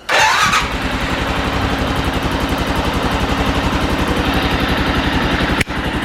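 Arctic Cat 650 H1 ATV's single-cylinder four-stroke engine starting on its first start after a rebuild: it fires at once with a short rising rev, then settles into a steady, evenly pulsing idle. The engine is running with spark restored by a new flywheel, its carburettor not yet adjusted.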